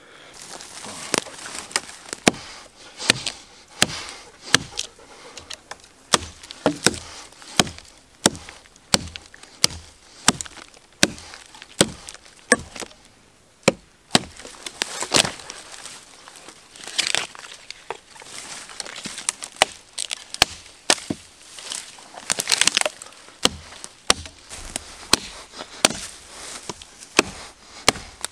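Terävä Skrama 240 carbon-steel machete chopping through branches and a sapling: a long run of sharp strikes into fresh wood, irregular at about one or two a second, with now and then a longer crack as the wood splinters.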